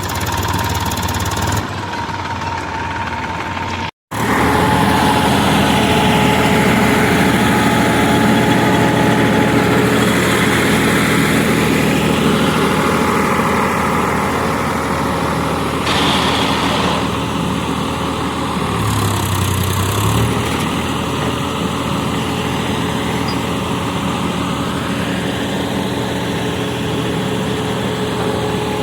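Diesel engine of heavy farm or construction machinery running steadily, with a momentary cut-out about four seconds in.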